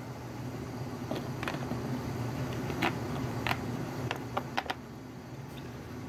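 Light plastic clicks and taps as an NMRA coupler height gauge is set on HO scale track and pushed against a model locomotive's coupler, about eight in all between one and five seconds in, over a steady low hum.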